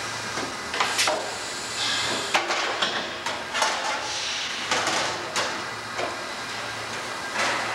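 Rotary compression bending machine running with a steady hum and hiss while a steel channel truck fender is bent around its round die. Sharp metallic knocks and clanks come about six times as the steel part shifts against the tooling and is handled.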